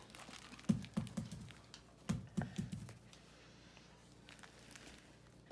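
Elastic bandage being wound around a splinted forearm: handling noise with two quick runs of soft taps, about a second apart, then fainter rustling.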